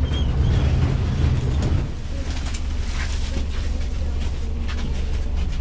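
Kyiv funicular car running on its track: a steady low rumble with rattles and clicks, heavier for the first two seconds.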